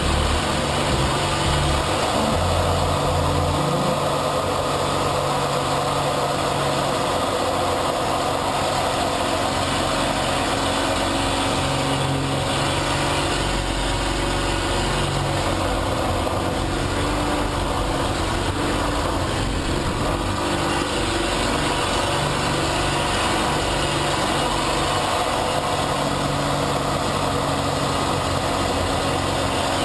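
Piston engine and propeller of an aerobatic monoplane running steadily under power, heard from inside the cockpit as a dense, unbroken drone.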